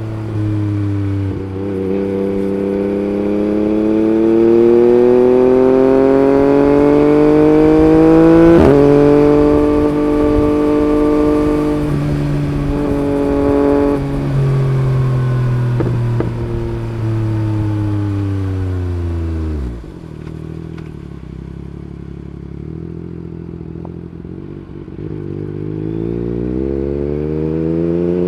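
Yamaha MT-09's 890 cc three-cylinder engine through an Akrapovic Racing Line carbon exhaust, pulling up through the revs under acceleration, then making a sudden quickshifter upshift where the pitch drops abruptly. It holds steady revs for a few seconds, winds down as the bike slows, drops to a low steady idle about two-thirds of the way through, and revs up again near the end.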